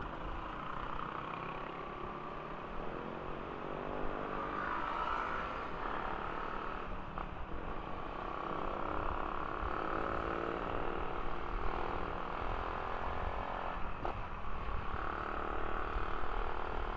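Motorcycle engine running while riding in traffic, its pitch rising and falling with the throttle several times, over a low rumble of wind and road noise.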